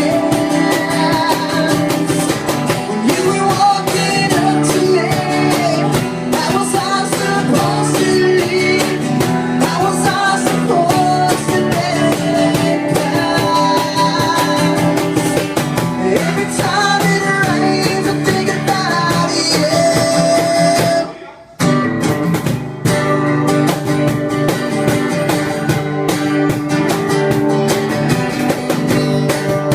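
Live acoustic song: strummed acoustic guitar over a cajon beat, with a singing voice carrying the melody. The music drops out for a moment about two-thirds of the way through, then picks up again.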